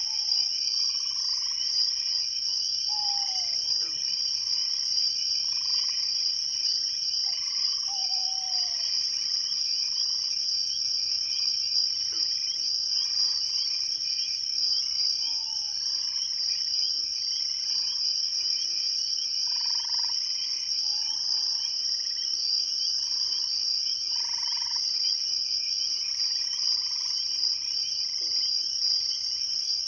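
Night chorus of crickets and frogs: a steady high cricket trill over short frog notes repeating about every second and a half, with a higher insect chirp about every two and a half seconds and a few short falling calls.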